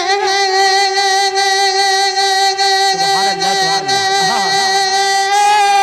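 A naat sung by a male qari, who holds one long steady note with no words, in a high register. A second, lower voice slides up and down briefly in the middle.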